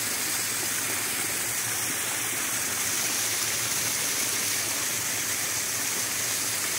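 Small waterfall spilling down a rock face into a pool: a steady, even rush of falling water.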